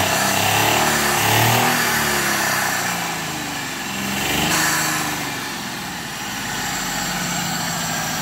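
Maruti Alto's three-cylinder petrol engine running just after starting, its speed rising and falling twice and then settling into a steady idle. It is running again once an air lock in the fuel line, left by running the tank dry, was cleared by switching the ignition on and off.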